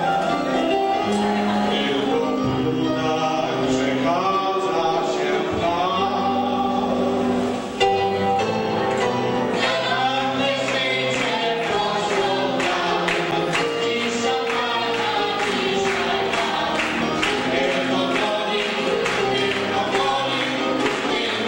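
A mixed group of men and women singing a song together into microphones, with piano accompaniment. From about halfway through, a steady beat of sharp taps keeps time under the singing.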